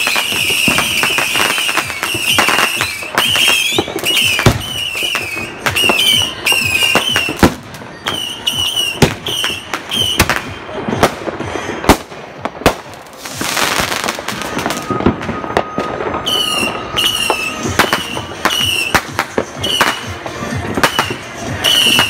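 Fireworks and firecrackers going off in an irregular string of sharp bangs and pops, with a repeated short high chirping sound over them.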